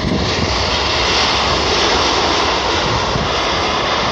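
Jet airliner's engines running loud just after touchdown: a steady rushing noise that swells a little and then holds.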